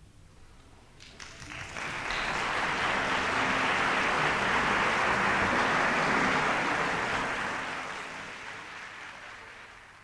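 Audience applauding at the end of an orchestral performance. The clapping starts about a second in, swells quickly, holds, then dies away toward the end.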